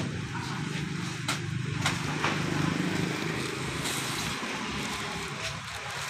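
Paper sacks of cement being handled and set down on a stack, with a few dull knocks in the first few seconds, over a steady low engine hum that fades about halfway through.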